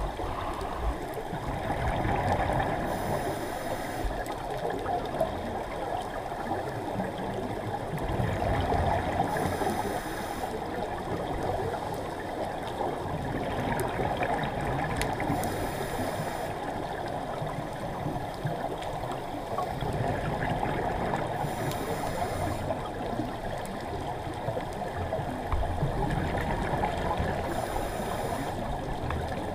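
Scuba diver breathing through a regulator underwater: a short hiss on each breath in, followed by bubbling exhalation, repeating about every six seconds over a steady wash of water noise.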